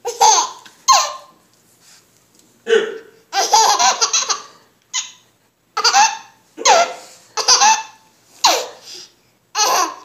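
An adult hiccupping repeatedly, with a seven-month-old baby laughing out loud in reply: about ten short bursts roughly a second apart, and one longer run of laughter a few seconds in.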